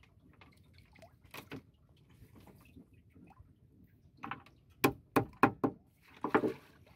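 Hand work on a wooden fishing boat: soft handling and water sounds, then four sharp knocks in quick succession about five seconds in, followed by a short splashy burst.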